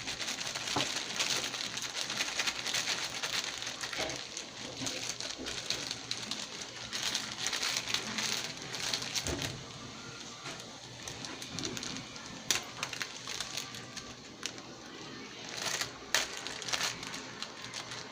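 Food packaging crinkling and rustling as a heated sandwich is unwrapped, busiest in the first half, then scattered rustles and clicks.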